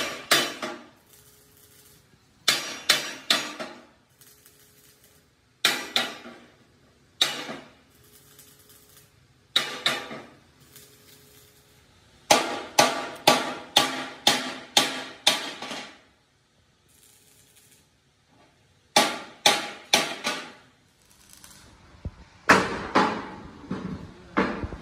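Hammer blows on steel, each a sharp ringing clang, coming in groups: a few quick blows, then single strikes, then a run of about eight blows at roughly two a second, then more short runs.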